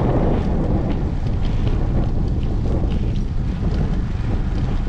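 Wind buffeting the microphone of a camera on a moving bicycle, a steady low rumble, with a few faint light ticks scattered through it.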